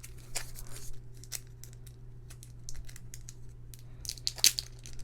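Paper and plastic packaging rustling and crinkling as the package's contents are handled, in short irregular bursts that come thicker near the end. A steady low hum runs beneath.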